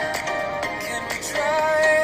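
Background pop music: a sung melody of long held notes with pitch slides over a beat.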